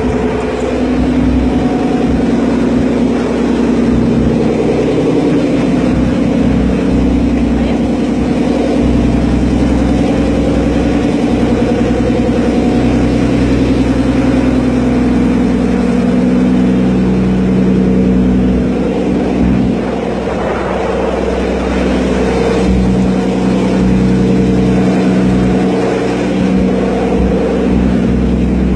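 Ferry boat's engine running steadily under way, a loud droning hum with a low rumble and a pitch that drifts slightly.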